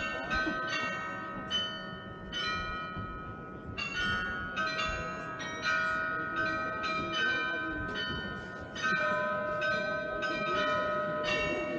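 Bells of the Munich Rathaus-Glockenspiel playing a tune: single bells of different pitches struck a few times a second, each note ringing on under the next.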